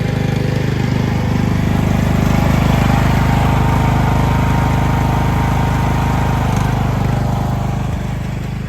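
Craftsman riding lawn mower's engine running steadily with a fast, even pulse, getting a little quieter near the end.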